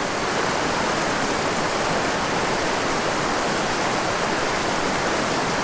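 Swift river current rushing steadily over rocks through a whitewater riffle.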